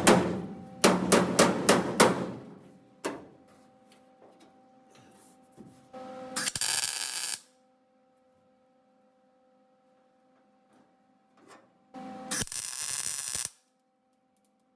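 A quick run of hammer blows on sheet steel, then two short bursts of welding, each about a second and a half of crackling hiss that starts and stops abruptly, as patch panels are shaped and tacked into the rusted body of a 1965 VW Beetle.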